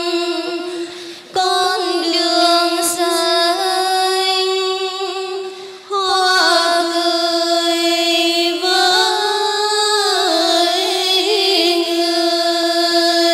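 Two women's voices singing a slow Vietnamese Buddhist meditation song (thiền ca) into microphones, drawing out the song's closing phrase in long held notes, with short breaks for breath about a second in and again about six seconds in.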